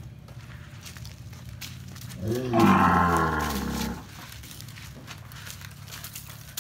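A cow mooing once, a single drawn-out call of nearly two seconds starting about two seconds in, over a steady low hum.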